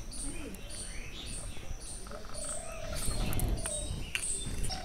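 Small birds chirping steadily in the background, short high chirps repeating about twice a second along with lower warbling calls.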